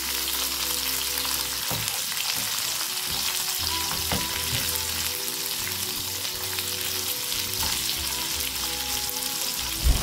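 Sliced onions sautéing in hot oil with whole spices in a frying pan: a steady sizzle, with a spatula stirring and scraping the pan now and then.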